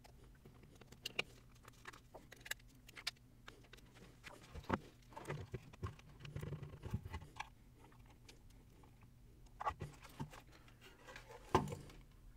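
Scattered small clicks, taps and scrapes of 3D-printed plastic parts being handled and pushed together by hand, with a few louder knocks among them.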